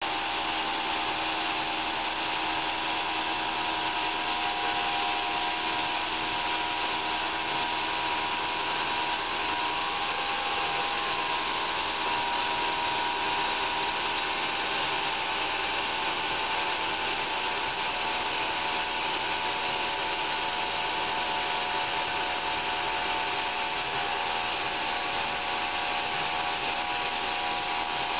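Homemade sawmill running steadily as it cuts a cherry log: a constant mechanical drone with a steady whine over a noisy hiss.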